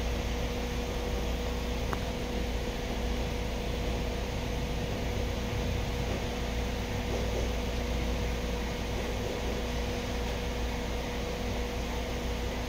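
Ford EcoSport engine idling: a steady low rumble with a constant mid-pitched hum over it.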